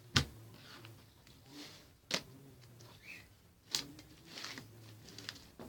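Slime being handled on a tabletop: three sharp clicks or snaps about a second and a half apart, with softer noises between them.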